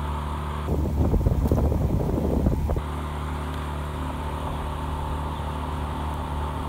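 Outboard motor of a following launch running steadily at a low, even note. Wind buffets the microphone from about one second in to near three seconds.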